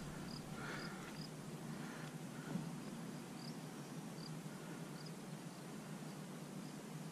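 Faint, short, high-pitched chirps from a small animal, about two a second at first and then further apart, over a steady low background.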